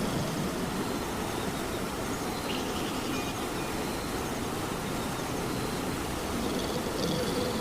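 Steady rain, an even noise heaviest in the low end.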